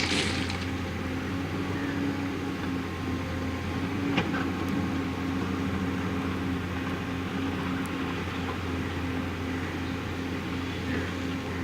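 JCB backhoe loader's diesel engine running steadily, with a short knock right at the start and another about four seconds in.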